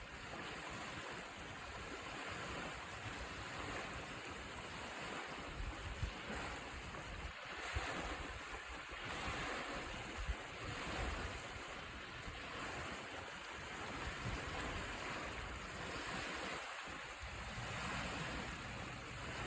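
Ocean waves breaking and washing in, a steady rush that swells and eases every few seconds, with a low rumble of wind on the microphone.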